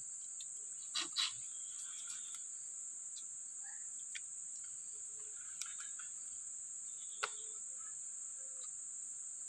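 Steady high-pitched chorus of insects droning in forest undergrowth, with a few short faint clicks.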